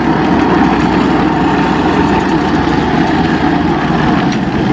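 Engine of a ZiD Vyuga mini snowmobile running steadily and loud, with no marked revving.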